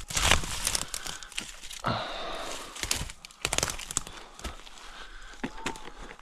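Footsteps crunching through dry leaves and rocky ground, with irregular crunches and snaps.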